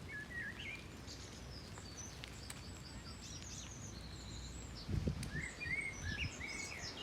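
Small birds chirping and twittering in short repeated phrases, over a steady low rumble, with a few soft thumps about five seconds in.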